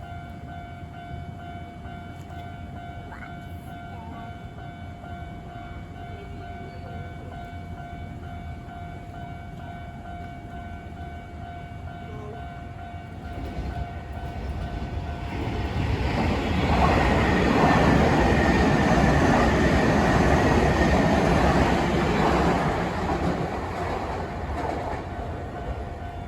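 Japanese level-crossing alarm ringing steadily. An electric commuter train approaches, rumbles past over the rails at its loudest about two-thirds of the way through, then fades away.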